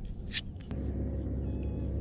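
A sharp click, then under a second in a steady low motor hum starts abruptly and runs on, with a few faint high chirps near the end.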